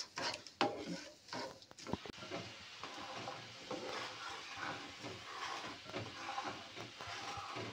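Sugar-and-water syrup boiling and bubbling in a nonstick pan while a plastic slotted spatula stirs and scrapes through it, with a few light knocks in the first two seconds. The syrup is being cooked down toward thread stage.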